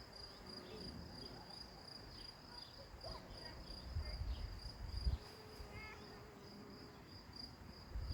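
Cricket chirping in a steady, even rhythm of about three high pulses a second, with a few low rumbles around the middle.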